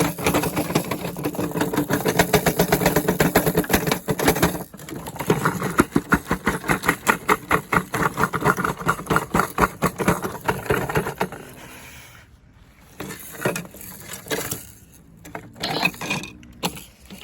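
Washing machine being run to destruction, its drum banging and rattling rapidly for about eleven seconds, then dying away to a few scattered knocks.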